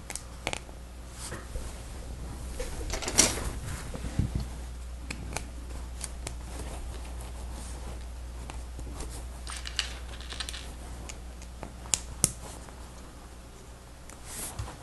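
Small plastic Lego Technic parts being handled and pressed together: scattered light clicks and rustling, with a few sharper snaps, about 3 seconds in and twice near 12 seconds. A steady low hum runs underneath.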